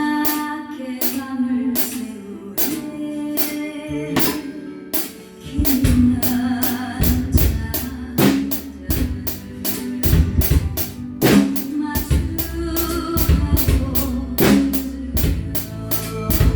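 Drum kit played along to a recorded song with a sung melody: steady snare and cymbal strokes, with the kick drum coming in strongly about five seconds in.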